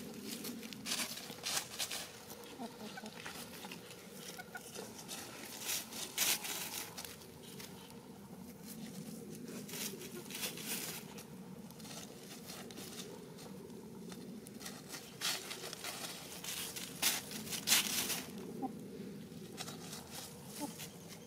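Dry leaf litter rustling and crackling in irregular bursts as hens scratch and peck through it, with the loudest bursts about six seconds in and again near the end.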